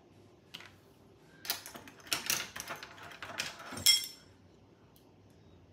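Metal measuring spoons clicking and rattling while extract is measured out of a small bottle, ending in a sharp, ringing clink about four seconds in.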